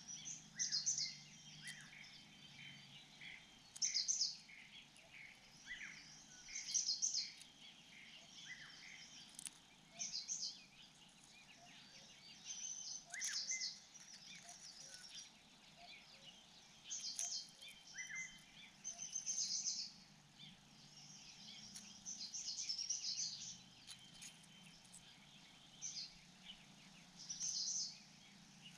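Small birds chirping, short high calls repeating every second or two over a faint steady background.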